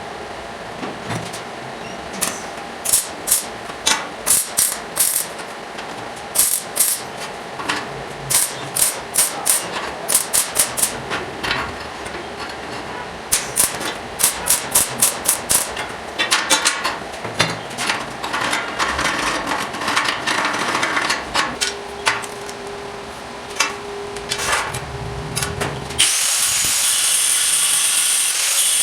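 Hammer striking metal in quick runs of sharp blows, with scattered knocks after them. Near the end a power tool starts and runs steadily with a high whine.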